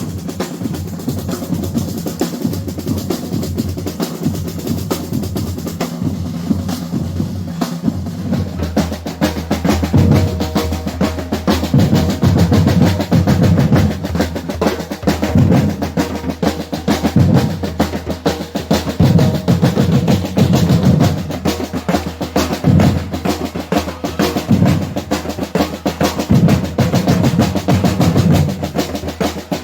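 Batucada drum ensemble playing: a dense, fast snare-drum rhythm with bass-drum strokes under it, getting louder about ten seconds in.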